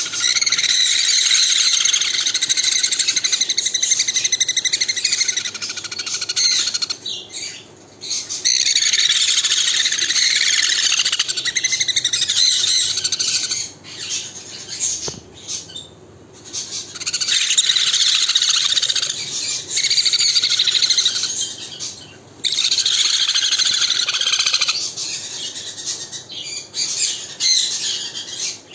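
Conure parrot calling loudly in long unbroken runs of rapid calls, with short pauses about a quarter, half and three quarters of the way through.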